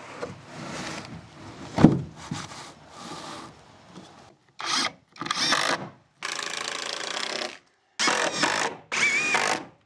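A wooden fascia board rubbing and knocking as it is pushed into place against the roof edge, with one sharp knock about two seconds in. From about halfway, a power drill drives screws through the board in several short runs that each stop abruptly.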